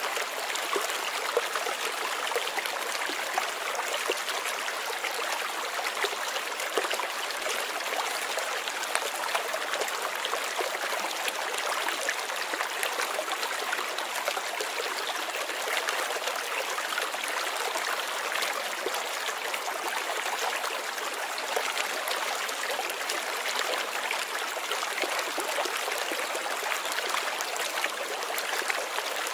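Running water trickling and splashing steadily, with many small splashes and no pauses.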